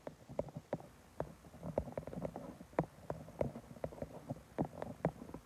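Fingers tapping on a phone's touchscreen while typing, a string of short irregular taps, about three or four a second.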